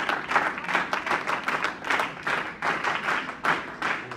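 Audience applauding: many hands clapping in a dense, uneven patter.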